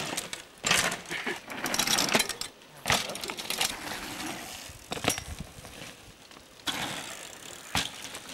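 Bicycles riding over and jumping a dirt ramp: bursts of tyre noise on loose dirt and several sharp knocks from landings and rattling bike parts.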